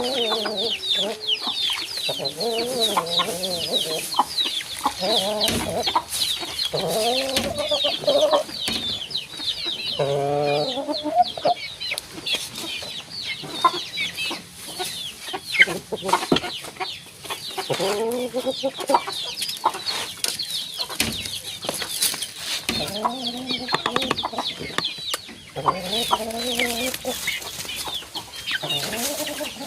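A flock of chickens clucking in repeated calls, over a steady layer of high, rapid peeping from chicks.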